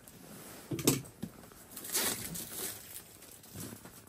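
Packaging being handled and opened by hand: irregular rustling and crinkling, with the strongest bursts about a second in and again around two seconds in.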